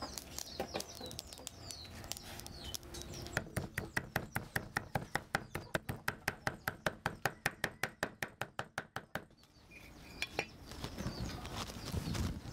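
Small birds chirping in the background, then a fast, even run of sharp clicks, about six a second, lasting about six seconds before stopping suddenly.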